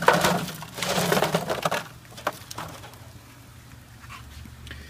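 Red-hot charcoal briquettes poured out of a chimney starter into a kettle grill, clattering and rattling onto the grate in two loud rushes over the first two seconds. A few stray clinks follow, then it goes quiet apart from a low hum.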